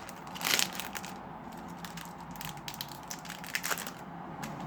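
Yu-Gi-Oh booster pack wrapper being torn open and crinkled by hand, in irregular bursts, the loudest about half a second in.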